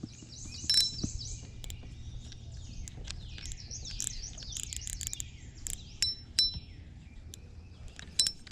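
Songbirds singing: many quick, overlapping falling chirps, with scattered sharp clicks.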